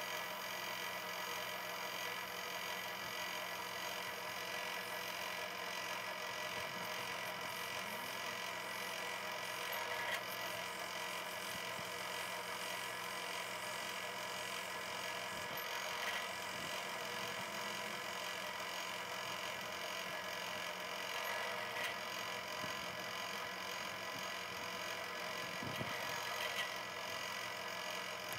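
Drill press running steadily as a twist drill bores into a metal block, a constant hum with a few faint ticks.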